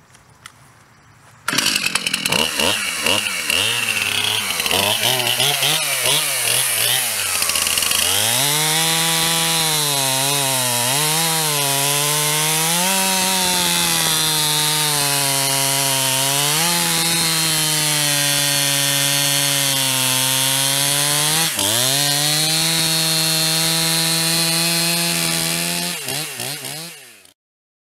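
Stihl MS 271 Farm Boss two-stroke chainsaw cutting through a large log. It starts loud and sudden about a second and a half in, its engine note dipping and recovering again and again as the chain bites under load, and it cuts off just before the end.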